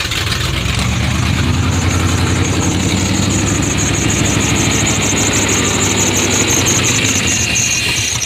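1988–98 Chevy Silverado engine running at idle just after being started, a steady low engine sound with a fast high ticking over it. The engine is struggling to hold its idle, which the owner now puts down to ignition timing or the distributor rather than a vacuum leak.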